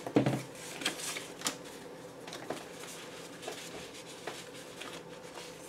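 Small cardstock journaling cards being picked through and set down in a plastic divided tray: a series of light clicks and taps about a second apart, the first and loudest just after the start.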